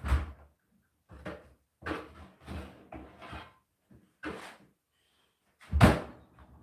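French-door refrigerator and a plastic food container being handled: a string of short knocks, rattles and clunks as the fridge is opened and the container is lifted out, with the loudest clunk near the end.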